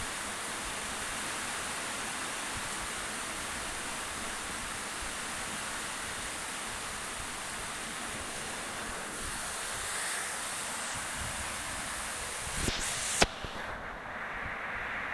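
Steady hiss of background noise, broken by two sharp knocks about thirteen seconds in, after which the hiss turns duller.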